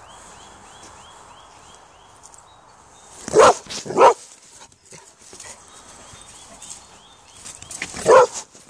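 Border collie barking three times: two sharp barks about two-thirds of a second apart, then a single bark near the end, as it nips playfully at a walker's wellington boots.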